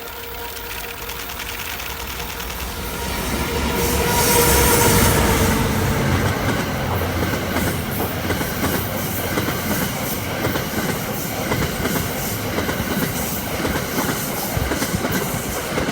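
The EF510 electric locomotive hauling the Cassiopeia sleeper train passes close by, loudest about four to five seconds in. After it the E26 series passenger cars roll past, their wheels clacking steadily over the rail joints.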